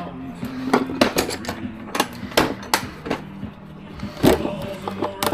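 A hammer striking, about eight sharp blows at an uneven pace.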